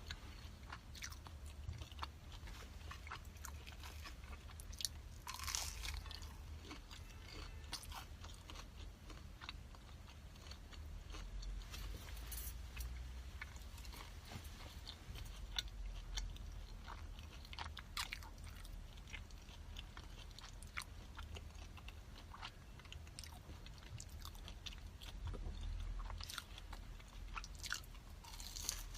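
A person chewing and biting food close to the microphone, with many short crisp crunches, over a steady low hum.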